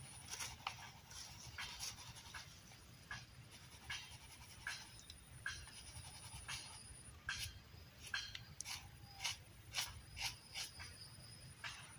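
Handling noise from hands baiting a fishing hook: scattered short clicks and ticks at irregular intervals, with a thin steady high whine behind them.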